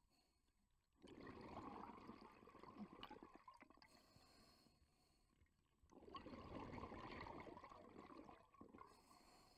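Faint scuba breathing through a regulator underwater: a thin hiss of inhaling, then a long gurgling rush of exhaled bubbles, twice, about five seconds apart.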